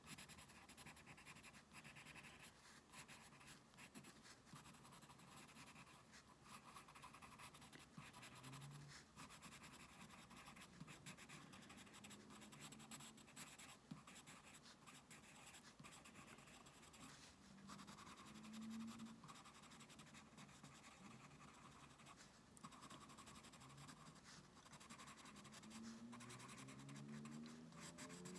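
Faint, continuous scratching of a coloured pencil (pencil crayon) shading across sketchbook paper.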